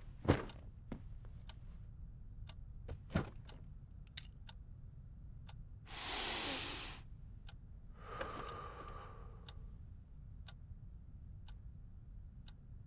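Clock ticking in a quiet room, the ticks a little uneven in spacing. About six seconds in comes a louder rush of noise lasting about a second, and a softer, longer one follows around eight seconds in.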